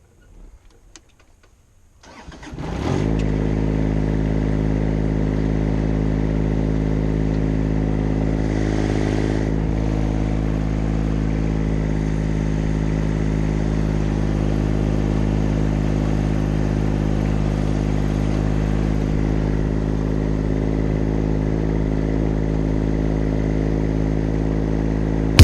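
An engine starts about two seconds in, then runs at a steady idle.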